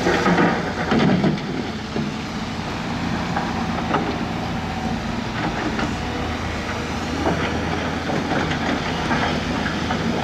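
Heavy diesel earthmoving machinery running steadily, with scattered knocks and clanks. It is louder for about the first second and a half.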